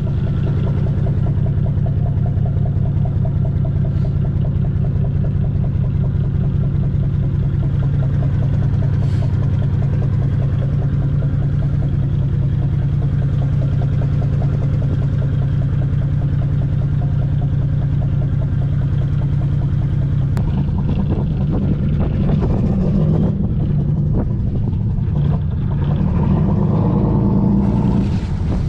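Engine of a towboat hip-tied alongside, running steadily at low speed while it pushes the disabled sailboat, its note shifting and varying after about twenty seconds.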